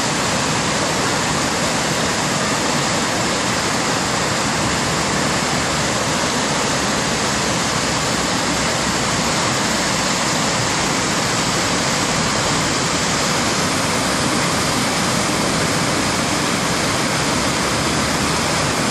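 Loud, steady rushing of whitewater rapids on a river in flood, running high after rain and snowmelt.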